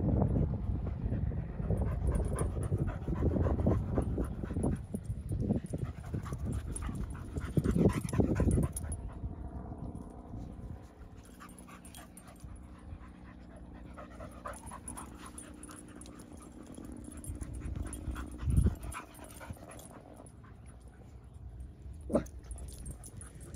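A dog panting close by. From about the middle, the small engine of a paramotor flying overhead drones steadily in the background for about ten seconds. Two short knocks come near the end.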